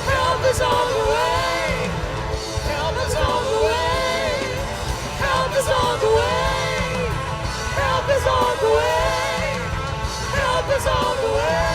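Live worship music: a band plays a steady accompaniment while a voice sings long, bending phrases, one about every two seconds.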